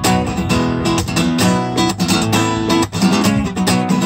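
Acoustic guitar strummed in a steady, rhythmic chord pattern, each stroke crisp over ringing chords.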